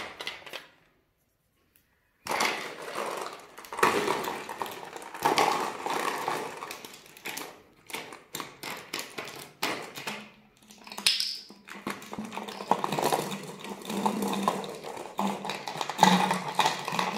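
Small plastic soda bottle crinkling and clicking as a raccoon paws and turns it, with the marbles inside rattling against the plastic. There is a short silent gap about a second in.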